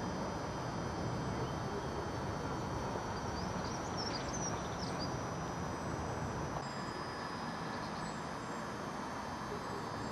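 Excavator diesel engines running steadily at a distance, a low, even hum, with a few short bird chirps about four seconds in.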